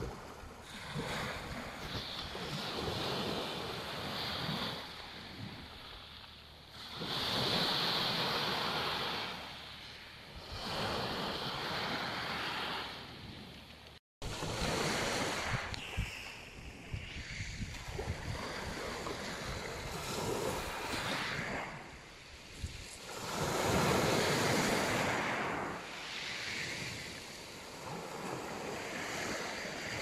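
Small Black Sea waves breaking and washing up a pebble beach, the surf swelling and fading every few seconds.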